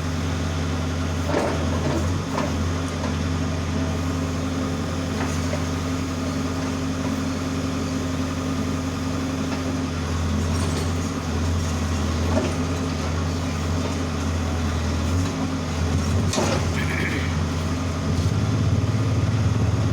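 Backhoe loader's diesel engine running steadily, with a few sharp knocks over it and the engine growing louder near the end.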